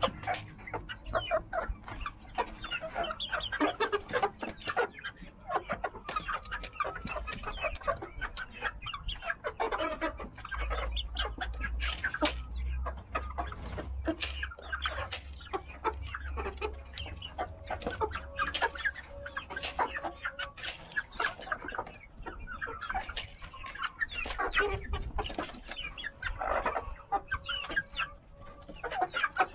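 A mixed flock of chickens clucking continuously as they peck at food.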